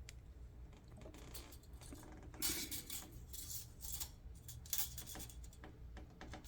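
Faint, scattered metallic clicks, clinks and brief scraping from an old manual typewriter being handled, the busiest stretch about two and a half seconds in, over a steady low hum.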